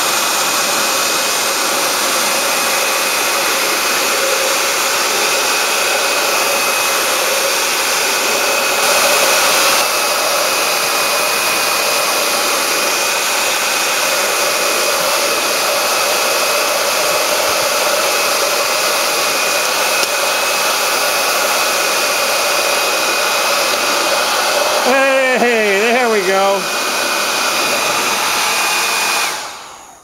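Conair Supermax 1600 hair dryer blowing steadily, a rush of air with a faint steady whine, switched off near the end.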